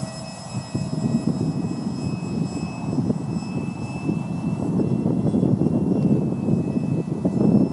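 A 50mm electric ducted fan (6000kv Dons' Wicked fan unit) on an RC F-35 jet in flight, giving a steady high whistle whose pitch dips slightly about six seconds in. Under it is a low rumble of wind on the microphone.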